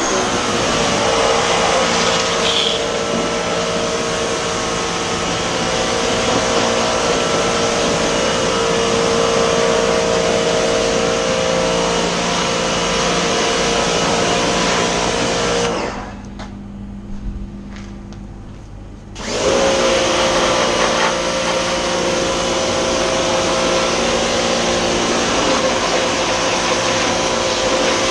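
Electric pressure washer running with a steady motor hum and the hiss of the spray jet hitting the dirt bike. It cuts out about sixteen seconds in and a similar steady machine noise starts again about three seconds later.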